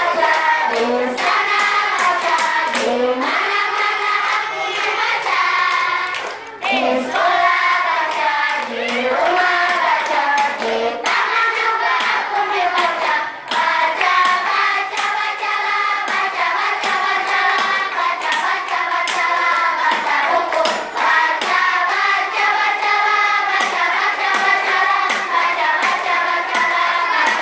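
A large group of schoolchildren singing together in unison, with many sharp hand claps and slaps along to the song.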